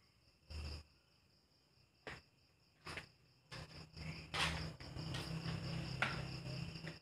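Crickets chirping steadily, with several short knocks and rustles; from about halfway through, a louder stretch of rustling and clatter as someone works close by.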